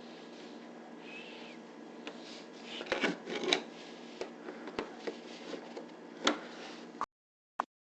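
Scattered light clicks and knocks of plastic and metal dishwasher parts being handled while the lower panel is unscrewed, with a small flurry of them about three seconds in. The sound drops out to dead silence shortly before the end.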